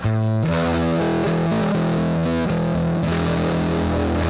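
Electric guitar played through a Headrush pedalboard's Plexi amp model with its gain dialled in, giving a dirty, overdriven tone. A chord is struck at the start, and the notes are held and ring on.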